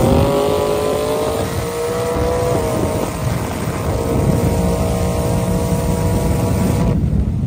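Street-race cars accelerating hard at wide-open throttle: the engine note climbs, then holds high and steady. The top part of the sound cuts off abruptly near the end.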